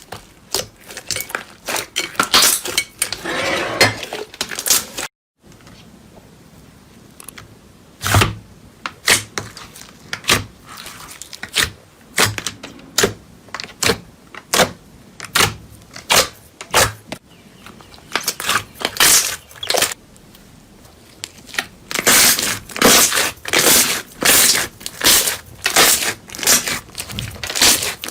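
Slime being squeezed and pressed by hand, giving a run of sharp clicks and crackles that crowd together near the end.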